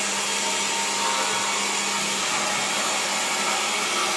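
Cordless drill running steadily under load, drilling into an aluminium window section.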